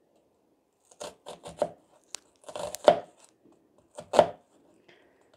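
Sharp kitchen knife slicing down through a halved onion onto a chopping board: a handful of separate crisp cuts with a tap of the blade on the board, beginning about a second in. These are the close lengthwise cuts made short of the root, the first stage of dicing the onion.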